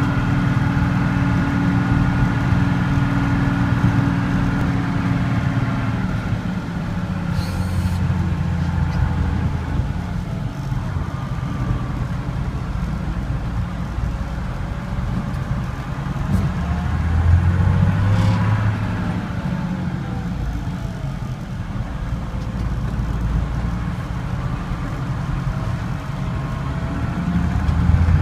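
Unimog U1300L's diesel engine running under load as the truck pushes a snow plow, its pitch rising and falling as engine speed changes. A short hiss comes about seven seconds in.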